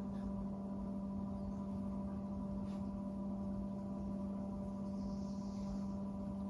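Electric potter's wheel running with a steady hum.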